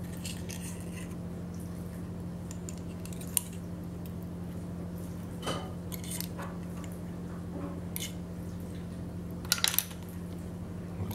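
Scattered light clicks of snail shells and a metal pick knocking together while the cooked snails are picked out, over a steady low hum; a quick cluster of clicks comes near the end.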